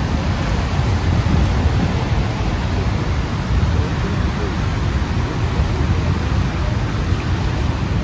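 The Rhine Falls, a large river waterfall, crashing and rushing: a steady, loud, unbroken noise with a heavy low rumble.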